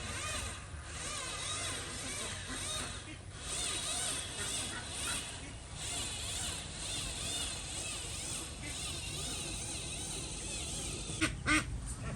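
Small electric motors and gearboxes of RC construction models whining, the pitch wavering as they work, with two sharp clicks near the end.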